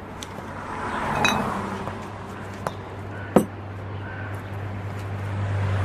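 A few light clinks and knocks of small objects on a shop counter, the loudest a sharp clink about three and a half seconds in, over a steady low hum.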